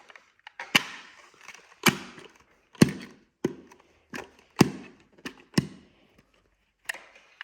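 Sharp plastic clicks and knocks from the dust cup of an Ozito PXC 18V cordless stick vacuum as its empty latch and lid are worked open and snapped shut, about nine in all, unevenly spaced.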